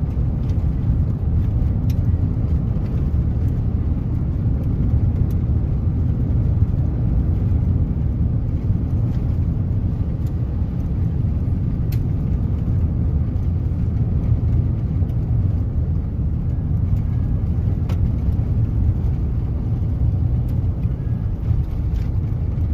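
Steady low rumble of a vehicle driving on a gravel road, heard from inside the cab, with a few faint ticks now and then.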